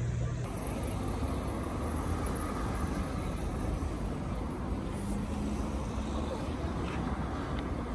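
Steady outdoor street noise: a low rumble of road traffic.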